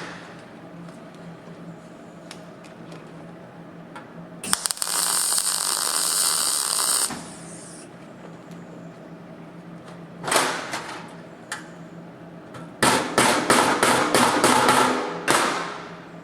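MIG welder laying pulsed tack welds on thin car-body sheet steel. There is a continuous arc hiss of about two and a half seconds, a short burst around ten seconds in, and then a run of crackling pulsed tacks lasting a couple of seconds near the end, all over a steady low hum.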